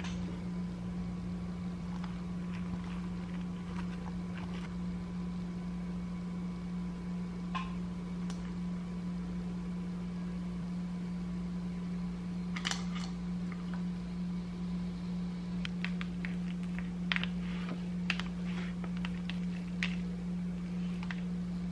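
A steady low hum, like a fan or appliance motor, with faint short clicks and rustles in the second half as hands handle the chicken breast and shredded cabbage on a plate.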